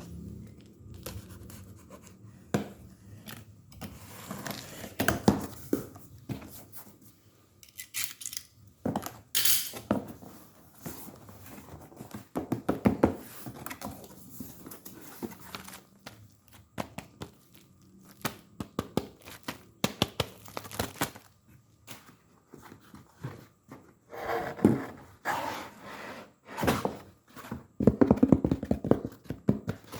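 Air fryer packaging being handled: irregular thunks, knocks and scrapes of cardboard and plastic, with some rustling and tearing, busiest near the end.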